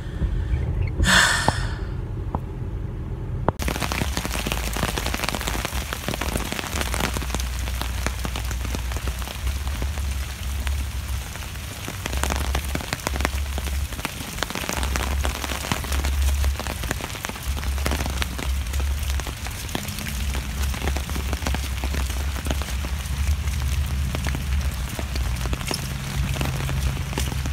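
Steady rain starts suddenly about four seconds in, after a quieter opening: a dense patter of drops with many close individual ticks, and a low rumble on the microphone that comes and goes.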